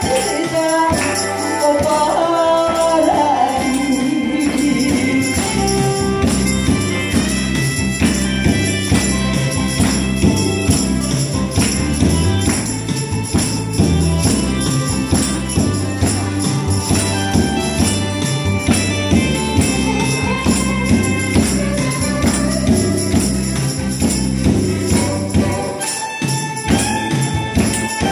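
Amplified backing track of a Korean song with a steady beat. A woman sings over the first few seconds, then the instrumental carries on, with tambourines shaken along by the audience.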